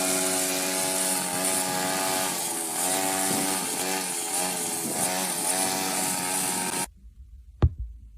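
A motor running steadily with a buzzing hum and hiss, its pitch wavering up and down in the middle, cutting off suddenly near the end.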